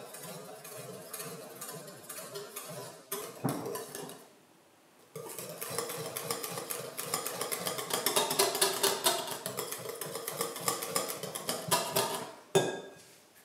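Wire whisk beating wet cake batter in a glass bowl, its wires clinking rapidly against the glass. The whisking breaks off briefly about four seconds in, then resumes faster and louder, with a single sharp knock near the end.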